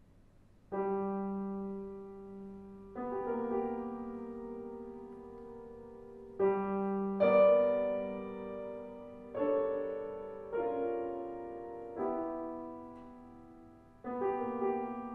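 Steinway grand piano played slowly: about eight chords, the first about a second in, each struck and left to ring and fade before the next.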